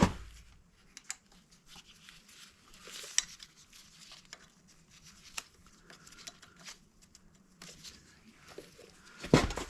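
Scattered small clicks, taps and rustles of hands working on a dirt bike's carburetor and throttle cable, with a louder clatter near the end.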